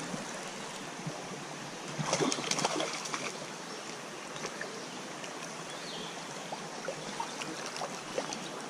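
Creek water running steadily, with a burst of splashing about two seconds in from a hooked trout fighting at the surface, and a few small splashes after.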